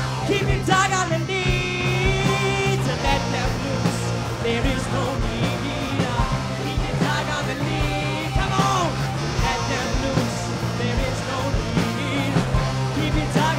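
Rock song playing with no words: a held bass note, regular drum hits and pitched lines that bend and glide above them.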